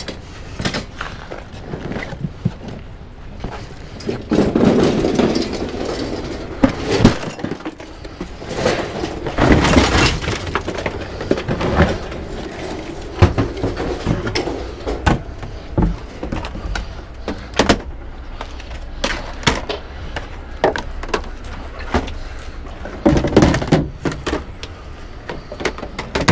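Repeated knocks, thuds and clatter of electronic equipment being handled and moved, with heavier rumbling stretches about four seconds in, near ten seconds, and near the end.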